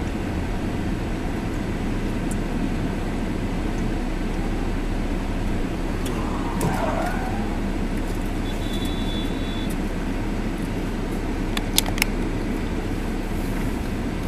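A car driving, with steady road and engine noise, and a few sharp clicks near the end.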